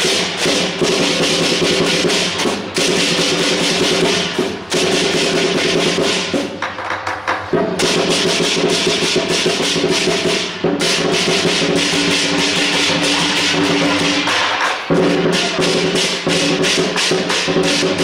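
Chinese lion dance percussion: a big drum beaten in rapid strokes with crashing cymbals. Steady ringing tones sound underneath, breaking off and returning every few seconds.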